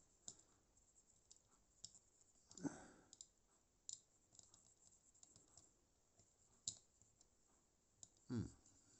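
Faint scattered clicks and light taps from a small plastic model lorry being handled and brushed clean. Two short, soft sounds come about two and a half seconds in and near the end.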